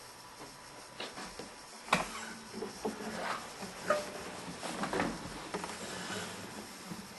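Faint, irregular clicks, taps and rustles of handling in a small room, over a low steady hum.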